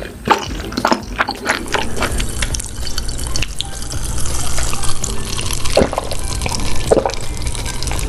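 Close-miked ASMR eating of beef large intestines: wet, squishy chewing and smacking. The sound is dense at first, then after a cut becomes steadier with a couple of louder smacks near the end.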